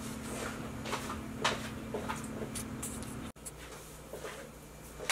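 Kitchen room tone: a steady low hum with a few light knocks and rustles of handling. The hum cuts off abruptly a little over three seconds in.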